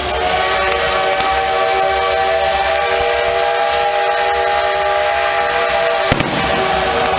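Fireworks display with a long, steady chord of several held tones sounding over a low rumble, and one sharp firework bang about six seconds in.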